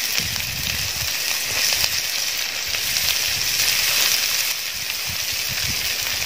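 Chopped onions frying in hot oil, a steady sizzling hiss as more onion is dropped into the pan.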